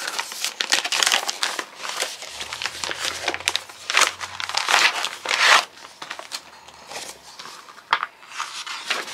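A cross stitch kit's packaging crinkling and rustling in the hands as it is opened and its contents are pulled out, in irregular bursts that are busiest in the middle.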